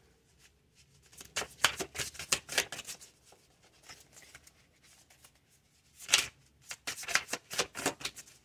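A deck of tarot cards shuffled by hand, a rapid run of card flicks. It starts about a second in, eases off for a few seconds, and picks up again about six seconds in.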